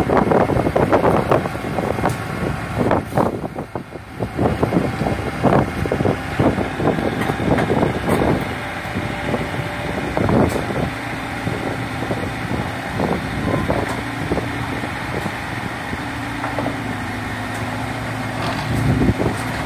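Amphibious excavator's engine working hard as it crawls its pontoon tracks up the ramps onto a self-loader trailer, with repeated irregular clanks and knocks of the tracks and steel for about the first ten seconds. After that the engine runs on at a steady note.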